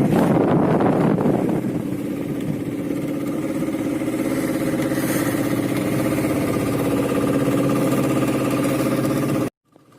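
A fishing boat's engine running steadily. It is louder and rougher for about the first second and a half, then settles to an even running note, which cuts off abruptly just before the end.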